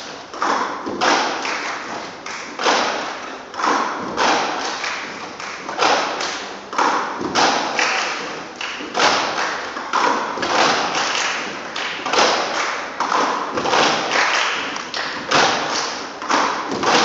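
Group percussion with broomsticks and plastic cups: many sticks and cups knocking and tapping on a wooden stage floor together in a steady rhythm, with a loud accent about once a second.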